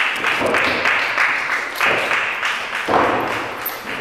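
Audience applauding, with sharp louder swells about two and three seconds in.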